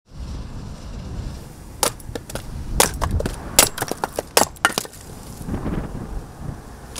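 A quick, irregular series of sharp knocks and clacks from hard objects, about a dozen in three seconds, over a steady low rumble.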